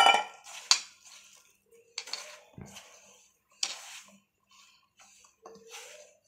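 A metal mixing bowl knocking and ringing as a hand mixes flour with water in it: a few sharp clinks spread through, the first the loudest, with soft rustling of the flour between them.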